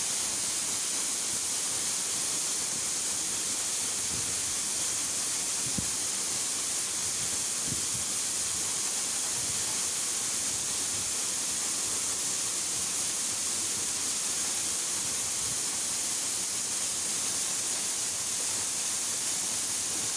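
Small waterfall cascading down a rock face into a pool: an even, steady hiss of falling water.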